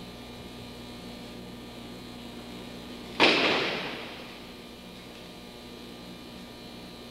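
A single sudden slap and thud of an aikido partner's body landing on the mat in a breakfall, about three seconds in, dying away over about a second. A steady mains hum runs underneath.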